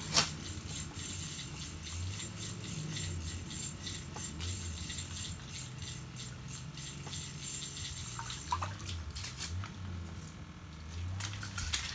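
Baitcasting reel on an ice-fishing rod being cranked to reel in a hooked fish: a fast, steady run of small clicks that stops about nine and a half seconds in. A low steady hum runs underneath.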